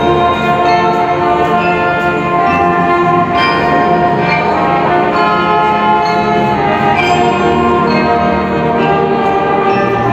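Marching band playing: brass holding chords over bells and percussion, with a few sharp accents along the way.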